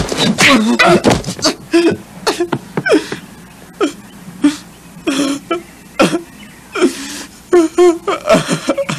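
A man sobbing and crying out in short, loud bursts with cough-like gasps between them, with a quieter stretch around the middle.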